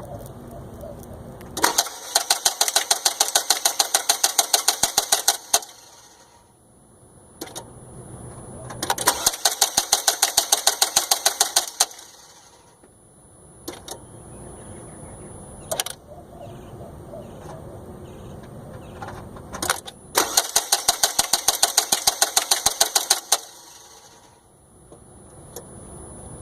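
Engine bay of a 2006 Isuzu i-280 four-cylinder pickup on three attempts to start it: each gives a few seconds of rapid, even clicking, about seven a second, with single clicks between the attempts. The engine does not crank or start.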